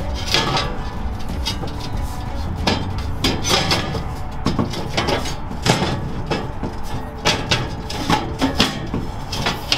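Steel sheet-metal fire pit panels clanking and scraping against each other as a tabbed centre piece is worked into the slots of the loosely bolted sides, with many irregular sharp metal knocks.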